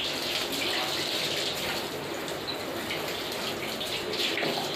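Water running steadily out of a toilet cistern's supply pipe with the angle valve open, splashing onto the tiled floor. The supply line flows freely, showing that the blockage lies in the cistern's inlet valve.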